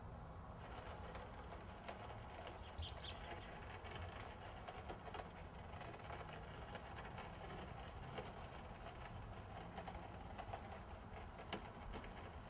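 Quiet background hum with a few faint, short bird chirps scattered through, and light clicks now and then.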